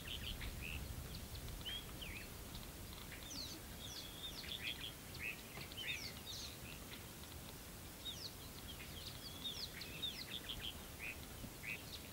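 Several small birds chirping and calling in quick, short notes, overlapping one another, over a faint low rumble.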